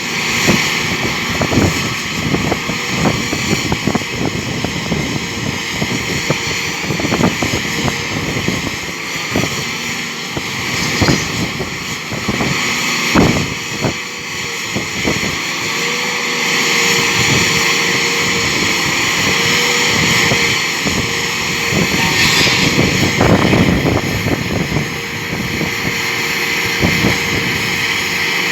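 Rock drilling rig running: a loud, steady machine noise with frequent irregular sharp knocks.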